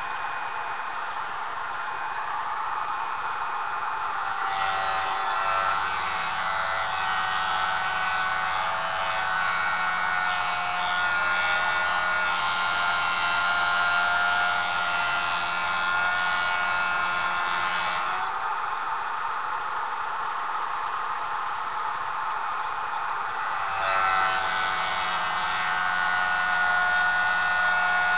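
Jooltool sharpening system's motor running steadily with a whine, and an edge being ground against its spinning abrasive disc: a hissing grind from about four seconds in for some fourteen seconds, then again from a few seconds before the end.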